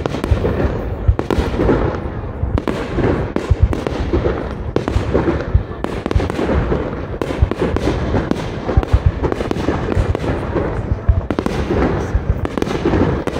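Fireworks display: aerial shells bursting in a dense, irregular run of bangs, several a second, with no pause.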